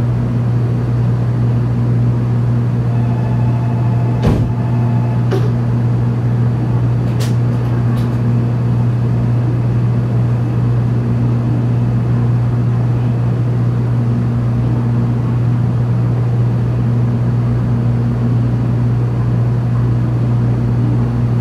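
Steady low hum inside a stationary 700 Series Shinkansen car, from its onboard equipment running while it stands at the platform. A few light clicks come about four to eight seconds in.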